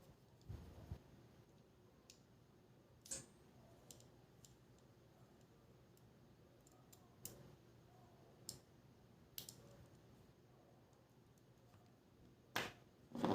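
Sparse, faint clicks and taps of a small screwdriver and tools on the tiny screws and plastic and metal parts of a GoPro Hero 5 Black being taken apart, the two loudest near the end.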